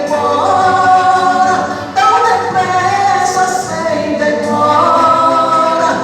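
Two voices singing a Portuguese gospel hymn together, holding long notes in phrases, with a brief breath about two seconds in.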